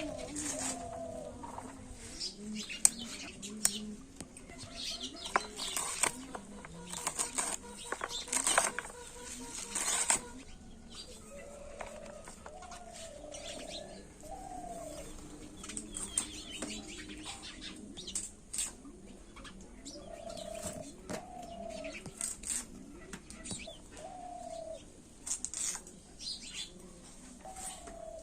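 Irregular clicks and rustles of handling, with short bird calls repeating every few seconds.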